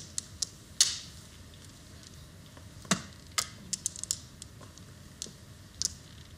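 Mahjong tiles clicking and clacking as they are drawn, set down and slid into a hand on the table. Scattered sharp clicks, the loudest about three seconds in, with a quick run of several clicks just after.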